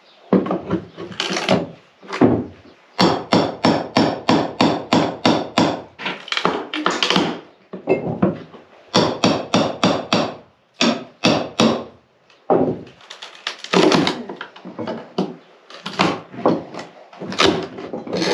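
Hammer blows on wood in quick runs of about three strikes a second, with short pauses between the runs.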